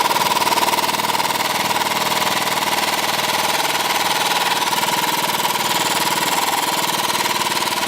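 A loud machine runs steadily with a fast, even rattle and a steady mid-pitched hum, then cuts off suddenly near the end.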